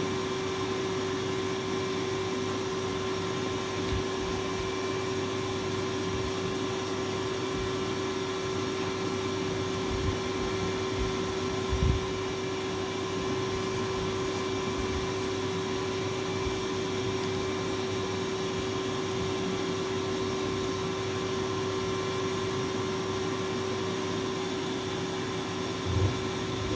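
Steady hum of a Tullu electric water pump running as it lifts the supply water, with one constant mid-pitched tone over it. A few soft thumps break in, the loudest about twelve seconds in and near the end.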